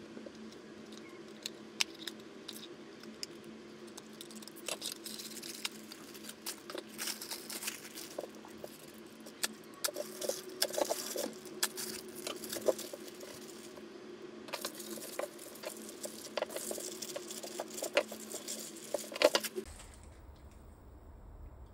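Hands handling a small cardboard blind box and a clear plastic bag of figure parts: crinkling and rustling plastic and cardboard with many small clicks and taps. The bag is slit with a snap-blade utility knife. The handling comes in stretches, busiest in the second half, over a faint steady hum that stops shortly before the end.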